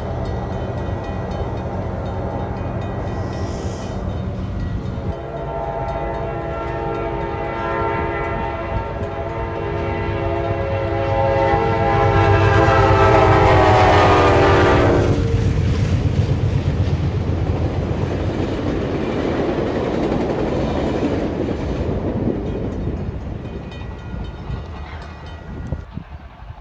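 A heavy machine or vehicle drones with a stack of tones that slowly fall in pitch, building to its loudest about 12 to 15 seconds in before the tones cut off. A steady rumble follows and fades near the end.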